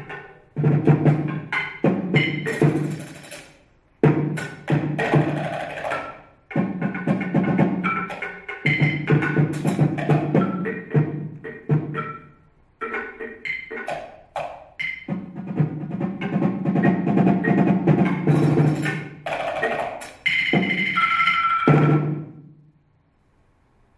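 Percussion duo playing wood blocks and other small tabletop percussion with mallets and beaters: a busy, irregular rhythm of sharp strikes, some ringing with a held pitch. It stops suddenly near the end.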